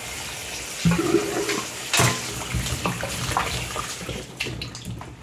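Kitchen tap running into a stainless steel sink full of oranges, with splashing and a few sharp knocks, the loudest about one and two seconds in, as the fruit is rinsed and moved about in the water.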